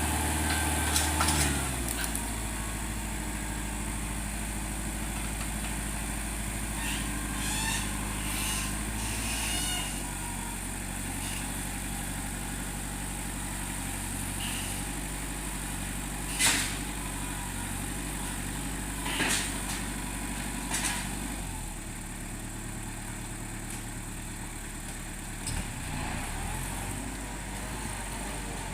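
Tractor engine running steadily. Its speed drops early on and its note changes again about three-quarters of the way through, with a few short knocks or clatters along the way.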